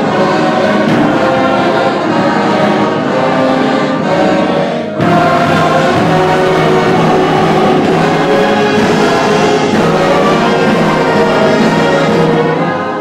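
Large amateur community choir of about a hundred voices singing with a band backing, recorded on a phone. About five seconds in the sound breaks off briefly, then the choir and band come back in a little louder.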